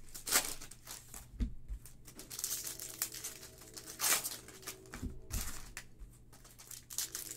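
Foil wrapper of a Donruss Optic football card pack being torn open and crinkled in the hands, with irregular crackles and a sharper rip about four seconds in.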